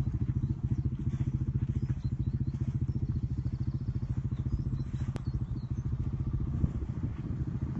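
An engine idling steadily, a rapid even throb.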